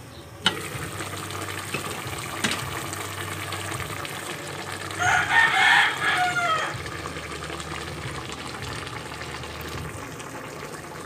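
A rooster crows once, about five seconds in, for nearly two seconds, ending on a falling note; it is the loudest sound. Under it a pot of fish stew simmers with a steady hiss, and a glass pot lid clinks as it is lifted off near the start.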